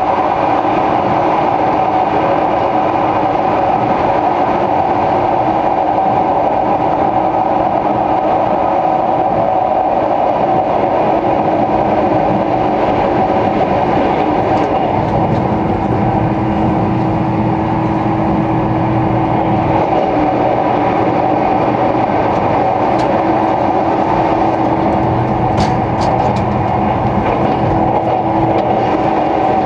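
Running noise of a 485-series electric limited express train at speed, heard from inside the carriage: a steady rumble with a held tone in it, joined by a second, lower tone about halfway through. Near the end come a few sharp clicks.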